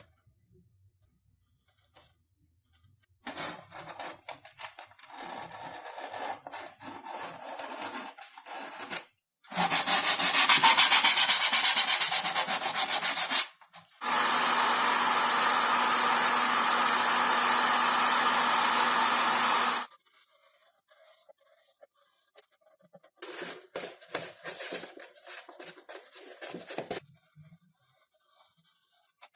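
Irregular scratching and rubbing strokes of foam board being cut or sanded by hand, broken by two stretches of a steady electric tool running, each several seconds long, the first louder than the second, then more hand scratching strokes near the end.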